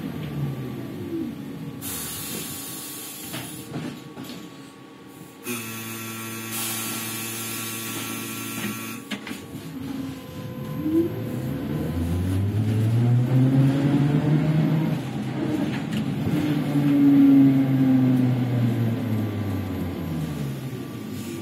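Ikarus-Ganz 280.94 trolleybus with Ganz electric traction drive: the motor whine falls as it slows, then a steady hum with two bursts of air hiss while stopped. About halfway through, the whine climbs in pitch as the trolleybus pulls away, then falls again near the end as it slows.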